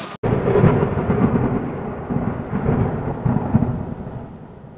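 Wind buffeting the microphone: a low, uneven rumble that fades toward the end.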